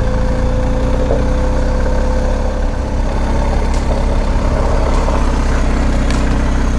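BMW GS Adventure motorcycle engine running steadily while the bike is ridden slowly along a dirt trail.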